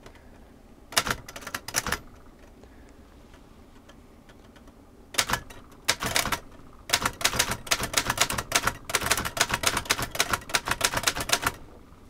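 Remington No. 10 manual typewriter being typed on. A short run of keystrokes comes about a second in, then a pause, then a longer burst of rapid keystrokes as the typebars strike the platen. The keys are hit hard enough that momentum carries each typebar to the paper without the key being pressed all the way down.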